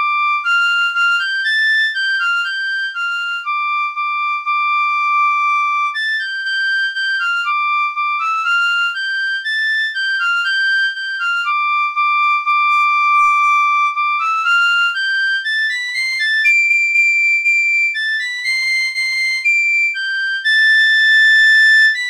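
Unaccompanied high-pitched woodwind melody with a flute-like tone: a single line of stepping notes, some held for about two seconds, with a few breathier notes past the middle.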